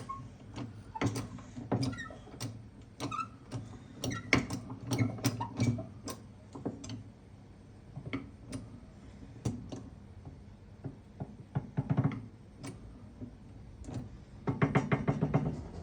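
Scattered light clicks and knocks of metal parts on a workshop press as a pump hub is pressed onto its front bearing, several a second at first and thinning out later.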